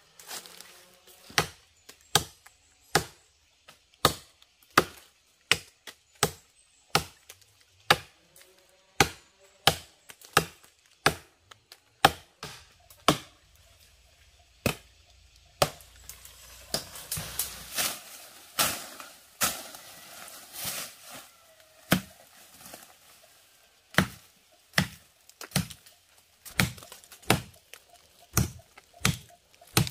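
A blade chopping wood, sharp blows landing about one and a half times a second, with a rougher, busier stretch of strikes in the middle.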